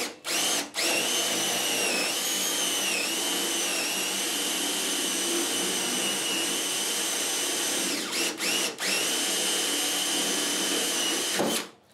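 Makita cordless drill boring a hole through a wooden board: a steady motor whine that stops and restarts briefly near the start and again about eight seconds in, the pitch sagging a little a couple of seconds in as the bit bites, until it stops just before the end.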